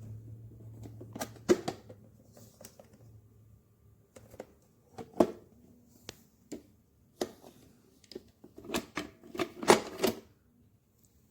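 Irregular sharp clicks and knocks of hard objects being handled, coming in small clusters, the busiest and loudest run near the end.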